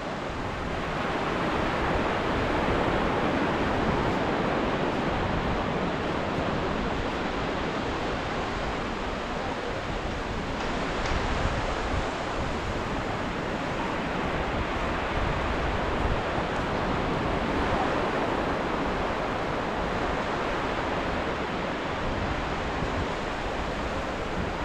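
Indian Ocean surf: waves breaking and washing in a steady rush that swells and eases slowly, with some wind on the microphone.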